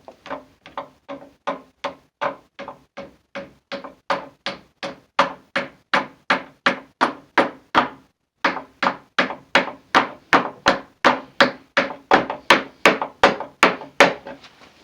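A hammer tapping a glued wooden dowel into a drilled hole in a chair leg's support block, with sharp, even knocks about three a second. The knocks pause briefly about halfway, then come louder and stop just before the end.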